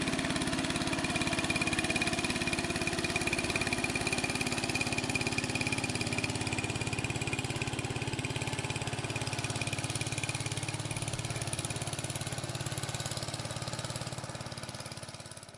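Small engine of a narrow wooden motorboat running steadily as the boat travels along the river, its sound dying away near the end.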